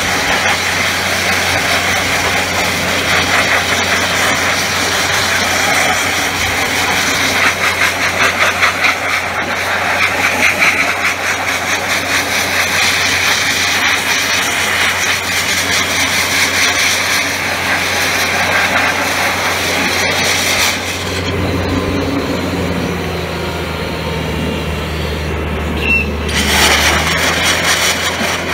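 DB500 Dustless Blaster nozzle spraying wet crushed-glass abrasive onto a steel car guard: a loud, steady hiss. About two-thirds of the way through, the hiss dulls for a few seconds and the low drone of the 185 CFM air compressor comes through, then the hiss picks up again near the end.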